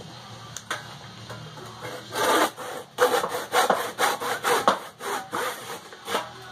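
Handsaw cutting through rough-sawn softwood in quick back-and-forth strokes, about two to three a second, starting about two seconds in after a couple of light knocks. It is finishing the inside corner of a rafter seat cut, where the circular saw's cuts do not meet at the back.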